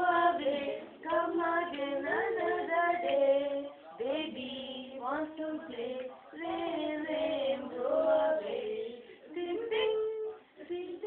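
A young boy singing a children's poem in short sung phrases, with brief pauses between lines.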